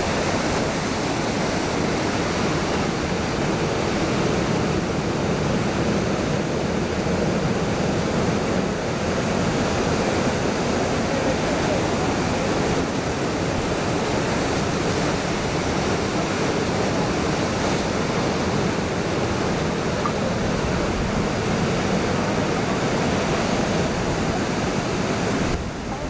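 Ocean surf washing onto the beach: a steady, continuous rush of breaking waves.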